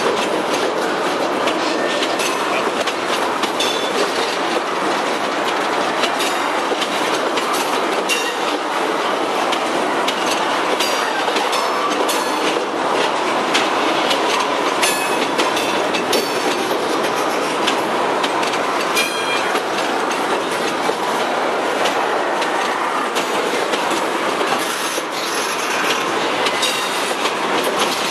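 Freight train's tank cars rolling slowly past: a steady rumble of steel wheels on rail, with clacks at the rail joints and short high wheel squeaks now and then.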